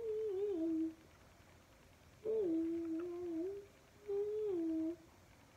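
A girl humming a tune with her mouth closed, in three short phrases separated by pauses, the pitch stepping down within the phrases.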